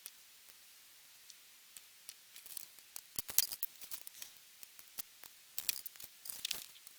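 Small plastic model kit parts being handled and snipped: scattered light clicks and snips, with two busier clusters about three seconds in and near the end.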